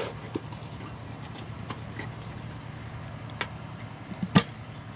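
A few light knocks from handling a metal beehive smoker, then one sharp metallic clack about four and a half seconds in as its hinged lid is snapped shut, over a steady low hum.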